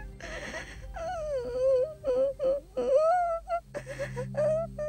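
A young girl's voice crying: long, wavering, wailing sobs that break off and start again.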